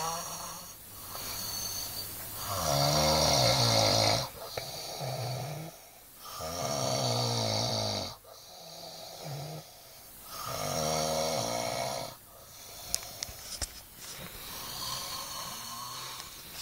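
An overweight boy snoring in deep sleep: four long, rasping snores about four seconds apart, with softer breaths between them. A few small clicks fall between the third and fourth snores.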